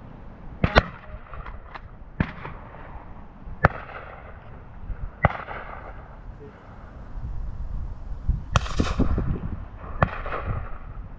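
Winchester SXP pump-action 12-gauge shotgun firing at pigeons: several sharp shots about a second and a half apart, each with a short echo. Gusts of wind rumble on the microphone.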